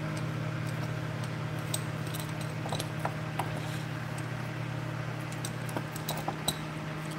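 Scattered light metallic clicks and rattles from a springy metal clamp lamp being handled and clamped back in place, over a steady low hum.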